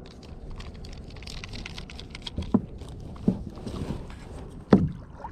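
Low, steady wind and water noise around a small fishing boat, with a few sharp clicks and knocks; the loudest comes near the end.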